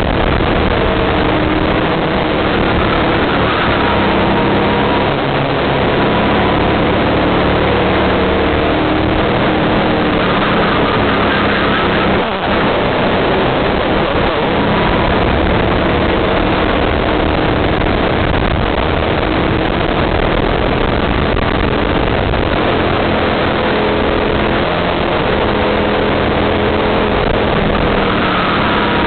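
Racing kart's engine heard from a camera mounted on the kart itself, running hard at full throttle, its pitch rising and falling through the corners. The engine note dips briefly about twelve seconds in as the throttle lifts.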